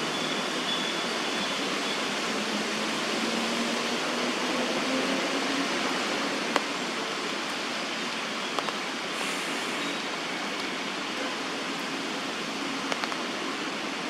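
Steady, even outdoor background hiss, with a few faint short ticks scattered through it.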